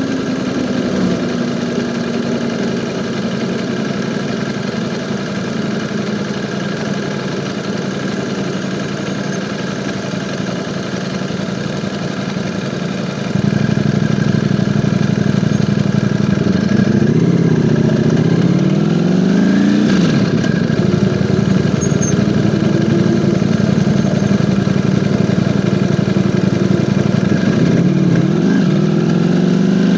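Ducati Panigale V4 motorcycle's V4 engine running on the move. It holds steady, then gets louder about a third of the way in. The revs rise and fall a few times past the middle and dip and climb again near the end.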